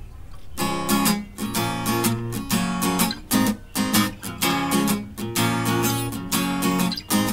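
Background music: guitar strumming chords in a steady rhythm, one strum about every half second.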